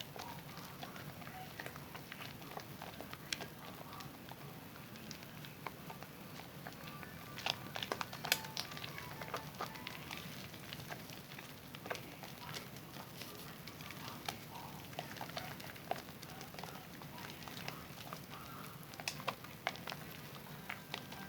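Zest bar soap being lathered with wet hands: soft wet squishing with many small crackles and pops of foam, busiest around eight seconds in and again near the end.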